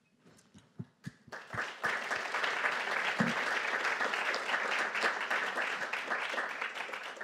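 Audience applauding: a few scattered claps, then full applause from about a second in that continues and starts to die away near the end.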